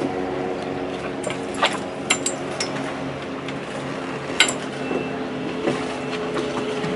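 A steady low engine hum, with scattered sharp clicks and knocks over it.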